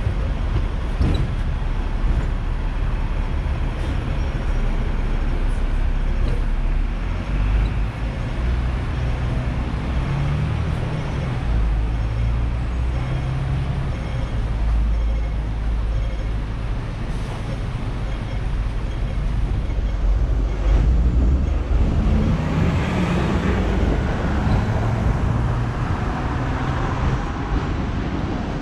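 Hong Kong double-decker tram running along its street tracks, heard from on board: a steady low rumble of the car and its wheels on the rails, with a low hum that shifts in pitch and road traffic around it. A broader, louder swell of noise comes about 22 seconds in.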